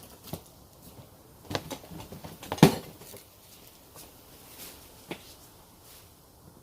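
Objects being handled and set down: a few separate knocks and light clatter, the loudest about two and a half seconds in.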